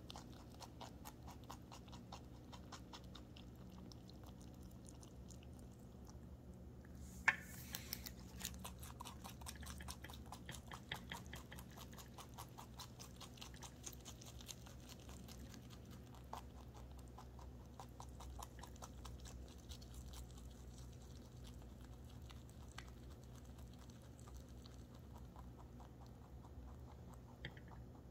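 A domestic rabbit chewing fresh cilantro close to the microphone: a fast, even run of small crisp crunching clicks, with one sharper click about seven seconds in.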